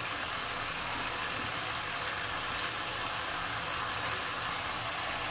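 Chicken drumsticks sizzling and bubbling in a little spiced gravy in a nonstick wok, a steady hiss with a faint low hum underneath.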